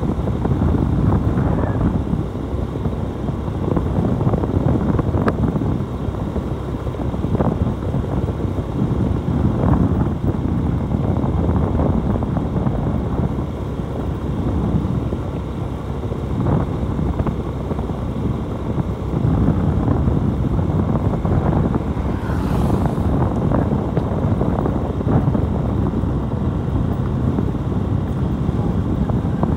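Motorcycle under way: a steady rush of wind over the microphone mixed with engine and road noise.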